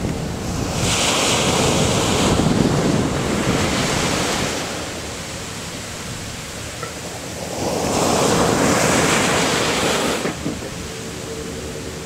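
Surf breaking and washing up a sandy beach in two loud surges, the first about a second in and the second around eight seconds in, each easing off as the water slides back.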